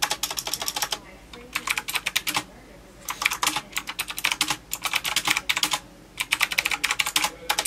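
Typing on a retro typewriter-style wireless mechanical keyboard with round keycaps: fast runs of key clicks, about four bursts with short pauses between them.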